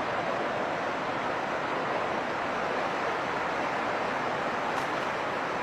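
Muddy river in flash flood, its fast floodwater rushing in a steady, even hiss.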